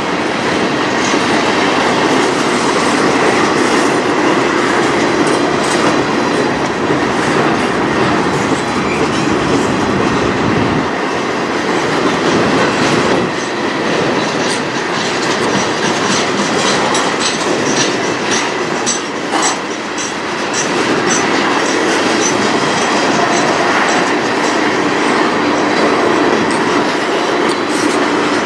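Freight cars of a manifest train rolling past at close range: a steady rolling noise of steel wheels on rail, with repeated sharp clicks of wheels over the rail joints, most frequent about halfway through.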